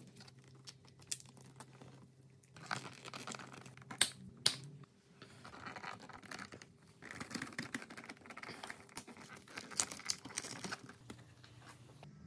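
Hands working tape and wires into a motorcycle's wiring harness: irregular crinkling, tearing and rustling of tape and cables, with two sharp clicks about four seconds in.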